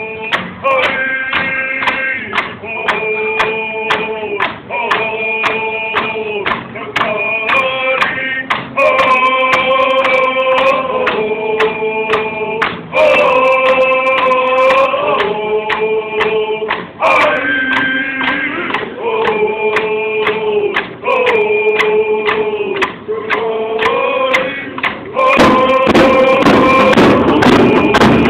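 A group of men and women singing together in unison to a steady beat of hand drums, a Native American hand-drum song. It grows louder and fuller about 25 seconds in.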